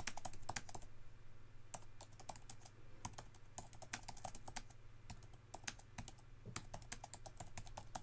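Typing on an Apple Magic Keyboard for iPad Pro: a quick, irregular run of soft clicks from its scissor-switch keys, a quiet keyboard.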